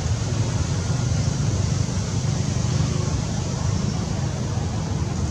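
Steady low rumble with a hiss over it, unchanging throughout and with no distinct calls or knocks.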